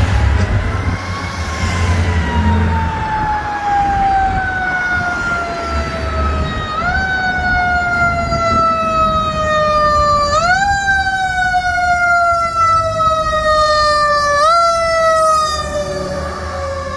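Fire engine's Federal Q mechanical siren winding slowly down in pitch, brought back up by three short rises, with low air-horn blasts underneath.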